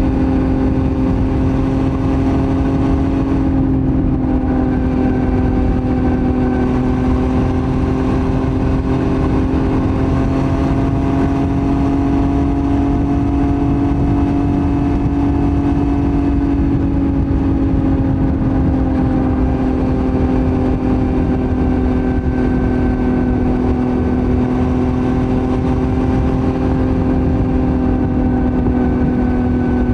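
Yamaha MT-09's three-cylinder engine running through a Roadsitalia titanium full exhaust at a steady, held engine speed. Its pitch rises slightly and then eases back down, over a steady rushing noise.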